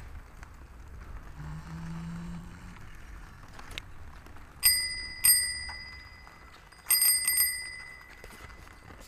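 Chrome dome bicycle bell on the handlebar being rung. Two single dings about half a second apart come first, then a quick trill of about four rings a second and a half later, each with a clear high tone that rings on and fades.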